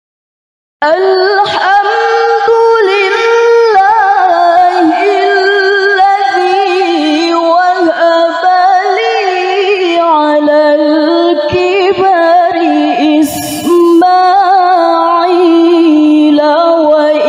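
A woman's high-pitched voice reciting the Quran in melodic tilawah style through a microphone, with long held, ornamented notes that waver in pitch. It starts about a second in after a short silence, and there is one quick breath about 13 seconds in.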